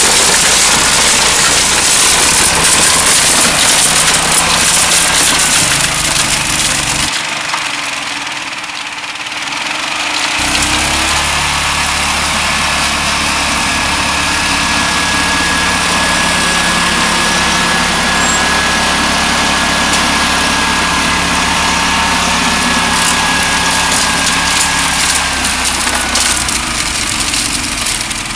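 Berco snow blower and John Deere Gator engines running steadily while clearing snow. The engine sound dips for a few seconds about seven seconds in, then runs steady again.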